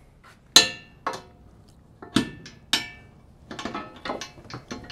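Metal wrenches clinking against a carrier mounting bolt and the carrier's metal frame as they are fitted to tighten the bolt. A sharp ringing clink comes about half a second in, a few more follow through the middle, and a run of lighter ticks and clicks comes near the end.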